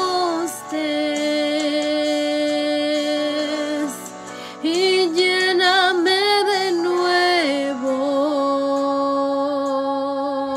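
A woman singing slow, long held notes with vibrato, with a short pause about four seconds in.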